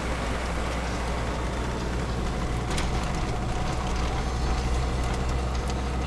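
A SsangYong Musso heard from inside its cabin, driving slowly in second gear through deep snow: a steady low engine drone under an even rush of tyre and road noise, with a few faint clicks.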